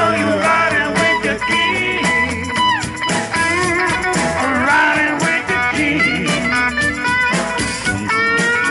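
Live band music: an electric guitar plays a lead with bending notes over a drum kit and hand-played conga drums.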